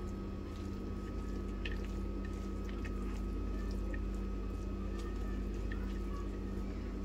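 Red spatula stirring a sticky chicken, vegetable and shredded mozzarella filling in a ceramic bowl: faint soft scraping and squishing with a few light ticks, over a steady background hum.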